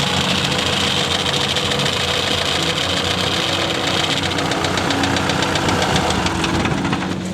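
Kubota combine harvester running steadily: a loud diesel engine drone overlaid with a fast, even mechanical clatter.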